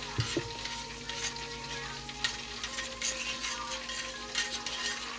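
Metal spoon stirring honey and spicy brown mustard in a bowl, with scattered clicks and scrapes and a couple of knocks near the start. Under it, a steady fine crackling and a low hum.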